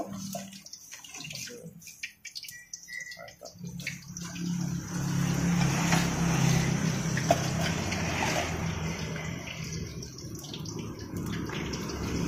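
Hot oil sizzling in a wok, with a few sharp clinks of a metal spoon in the first few seconds; the steady sizzle fills in from about four seconds in, over a low hum.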